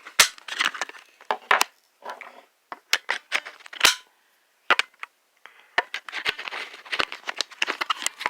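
Irregular sharp clicks and taps of 18650 battery cells and testing gear being handled, in quick clusters with a short pause about halfway.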